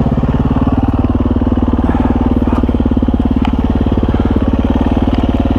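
Husqvarna FE350s single-cylinder four-stroke dirt bike engine running steadily at low revs, a fast even thumping, with a few faint clicks over it.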